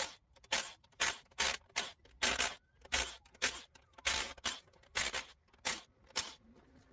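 Quick rhythmic scraping strokes of hand work on an engine, about two a second, a dozen or so in a row.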